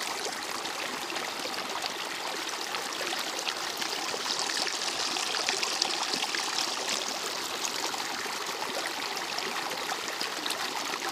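Muddy, rain-swollen mountain stream rushing and splashing over rocks, heard up close as a steady rush of water.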